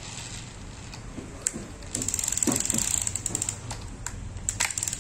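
Shimano level-wind sea-fishing reel being worked by hand, its mechanism clicking like a ratchet: a few scattered clicks at first, then a run of rapid clicking from about two seconds in.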